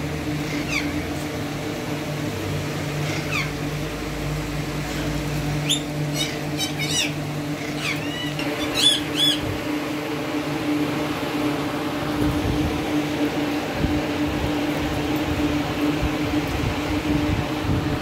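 Alexandrine parakeets giving short, sharp calls, a few scattered and a quick run of them about six to nine seconds in, over a steady low hum.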